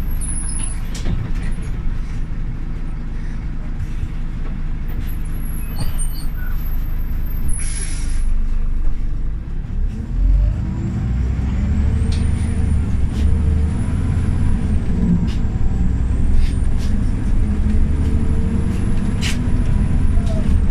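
Scania OmniLink articulated city bus diesel engine running at idle, with a short hiss of released compressed air about eight seconds in. Near the middle the engine speeds up as the bus pulls away, its pitch rising, with a faint high whine rising alongside it.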